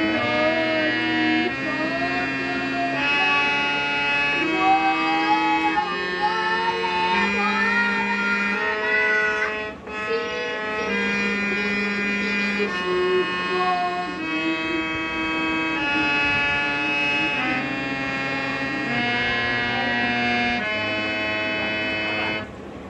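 Harmonium played by hand: held reed notes stepping from one to the next about every second and a half, with a brief break about ten seconds in.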